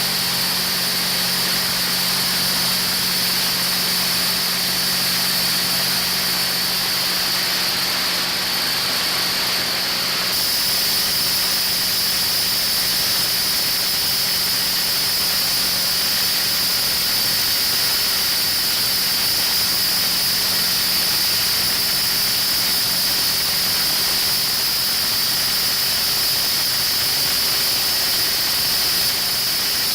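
Kohler 1000 kW industrial diesel generator set running steadily, a continuous engine drone with a steady high-pitched whine on top.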